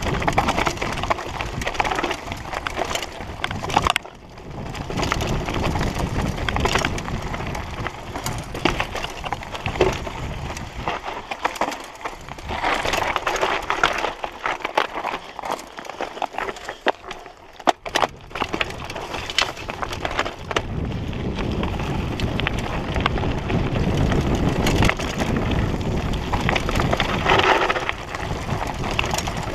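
Mountain bike descending a rocky, loose-dirt singletrack: tyres crunching over stones, with a constant rattle of knocks and clatter from the bike. The clatter is sparser and thinner in the middle, and a steadier rushing noise comes in over the last third.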